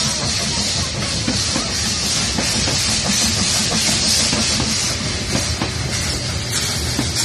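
HSB class 99.72 narrow-gauge steam tank locomotive moving slowly through the station, steam hissing steadily from its cylinder drain cocks over a low rumble and scattered clicks of wheels on rail joints.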